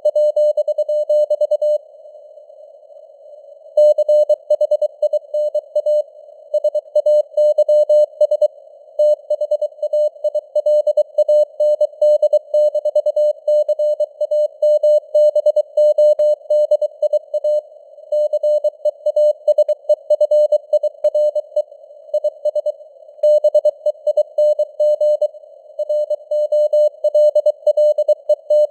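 Morse code at 23 words per minute: a single steady tone keyed on and off in dots and dashes, over a narrow hiss of simulated radio noise, with the signal strength varying. There is a pause of about two seconds near the start, between words.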